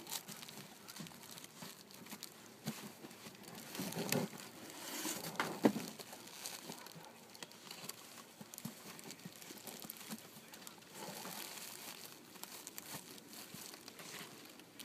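Plastic sleeves and paper wrapping crinkling and rustling as hydrangea bunches are handled and packed into a cardboard box. Scattered small clicks, with one sharp click about five and a half seconds in.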